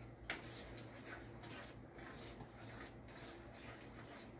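Faint sounds of a wooden spoon stirring a simmering sauce in a wok, soft scraping with a few light taps, over a low steady hum.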